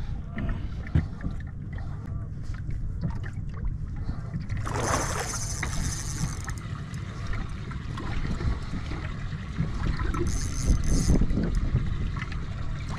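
Wind rumbling on the microphone out on the water, with two short high-pitched rasping bursts: one about five seconds in, lasting a second or so, and a shorter one about ten seconds in.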